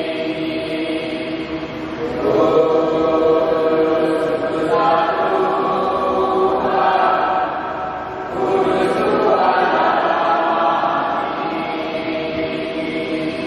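Voices singing a slow church chant together, in long held phrases with short breaks about two and eight seconds in.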